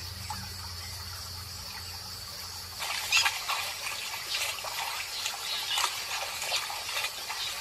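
Steady high insect drone, joined about three seconds in by irregular splashing and sloshing of shallow water, which then becomes the loudest sound.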